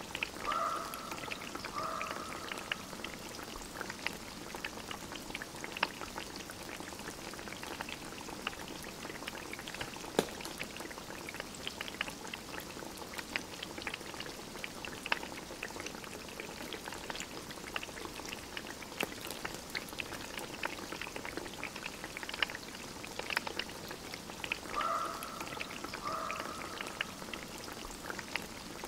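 Wood fire crackling in a small camp stove, with food bubbling in the pot on top. Two short whining sounds come about a second in and again near the end.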